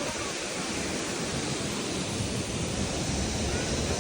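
Steady rushing noise of a waterfall's falling water.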